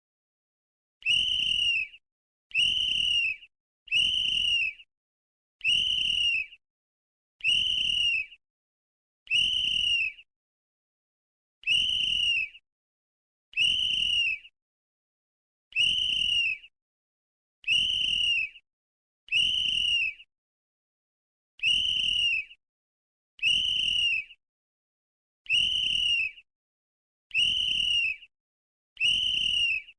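Sports whistle blown in a long string of short blasts, each about a second long and repeating about every second and a half, with silence between them.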